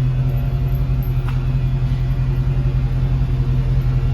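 Dodge Challenger Scat Pack's 6.4-litre HEMI V8 running steadily at low revs while the car creeps at parking speed.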